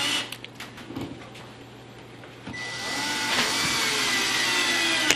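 Power drill driving a screw through the cabinet back panel into the bottom panel. A short motor run ends just after the start and is followed by a few seconds of handling clicks. The drill then starts again about two and a half seconds in and runs steadily to a sharp click at the end.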